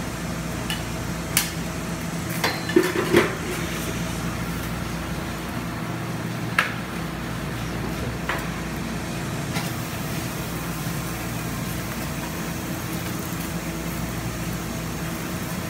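Metal spatulas clinking, tapping and scraping on the frozen steel plate of a rolled-ice-cream pan, with a handful of sharp taps mostly in the first half, over a steady machine hum.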